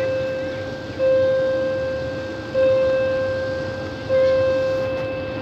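Railway level-crossing warning bell ringing with the barriers down. Single strikes come about every one and a half seconds, three in all, each fading away before the next. It is the warning that a train is approaching.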